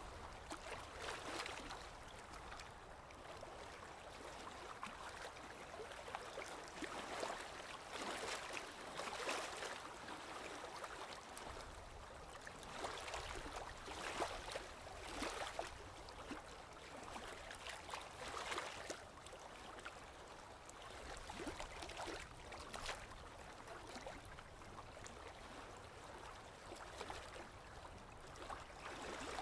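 Sea water lapping and splashing: small waves washing in, with a short splash every second or two.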